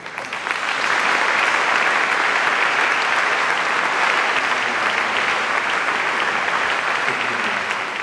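A large seated audience applauding, the clapping swelling within the first second and staying steady, easing slightly near the end.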